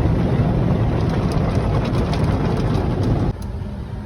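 Steady rushing road and wind noise of a moving car, which drops off abruptly a little over three seconds in to a quieter rumble.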